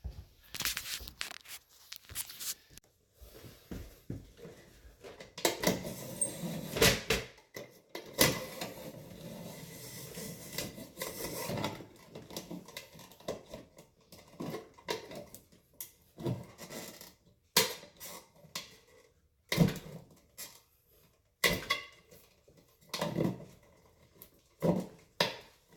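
Irregular scraping, rustling and clicking as a fish tape and 14-gauge electrical cable are pulled up through a wall into a plastic switch box.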